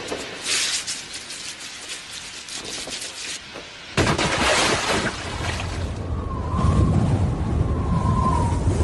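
Edited soundtrack of sound effects: a run of sharp crackling clicks, then a sudden loud boom-like hit about four seconds in, followed by a dense low rumble.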